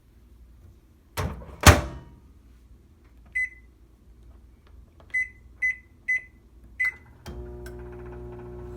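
Microwave oven: two thumps, then five short keypad beeps as the time is set, then about seven seconds in the oven starts and hums steadily.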